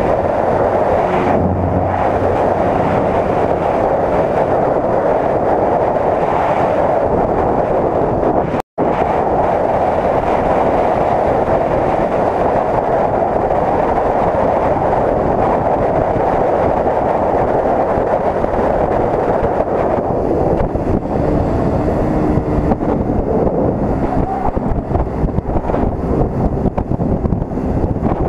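Wind rushing over the camera microphone on a moving Suzuki motorcycle at around 35 to 50 km/h, with the engine running under it. The sound cuts out for an instant about nine seconds in and turns rougher and gustier in the last third.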